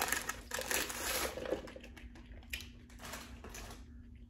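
Paper food wrapper crinkling and rustling as it is opened and pulled away from fried pickles. The crinkling is thick for about the first second and a half, then thins to a few lighter rustles.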